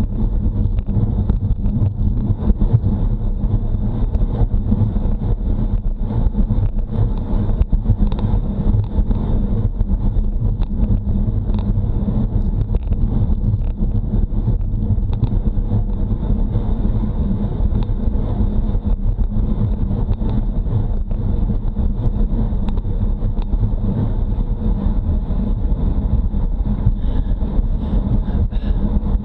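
Steady wind buffeting on a bike-mounted Garmin Virb action camera's microphone while riding a road bike at speed: a dense, constant low rumble.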